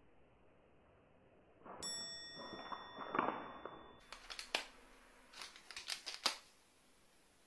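A small plastic cat-treat pouch crinkling and rustling in the hand, then sharp clicks and crackles as a carrion crow pecks and tugs at it with its beak. A ringing tone sounds for about two seconds starting about two seconds in.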